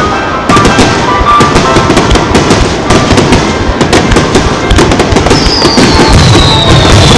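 Barrage of aerial firework shells bursting in quick succession, with dense overlapping bangs, crackling and low booms. From about five seconds in, a long high whistle slowly falls in pitch over the bangs.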